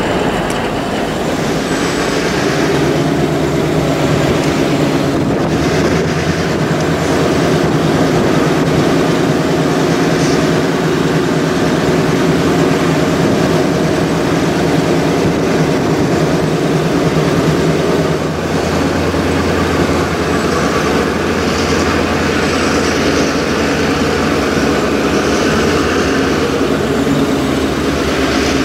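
A pair of EMD GP38-2 diesel locomotives running with their two-stroke diesel engines in a steady drone as they move a train of freight cars. The engine note shifts lower about two-thirds of the way through.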